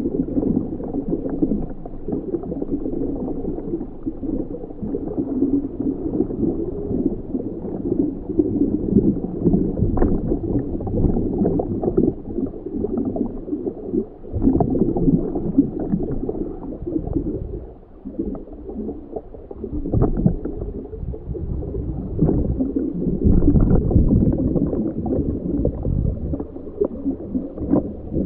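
Underwater ambience heard from a scuba diver's position: continuous churning, gurgling water noise, muffled with no high end, swelling louder in uneven patches and dipping briefly about eighteen seconds in.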